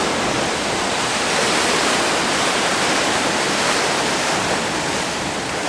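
Ocean surf breaking, a steady rushing noise without pause.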